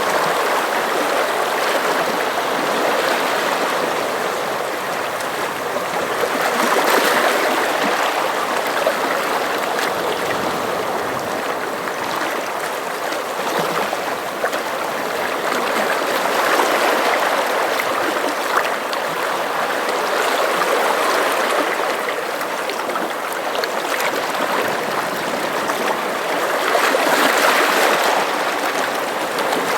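Sea water washing and churning against the shore: a continuous rushing wash that swells and eases every several seconds.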